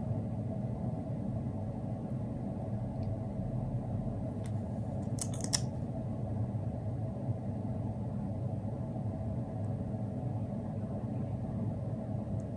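Steady low hum of indoor background noise, with a couple of faint clicks and a short burst of sharp clicking about five seconds in.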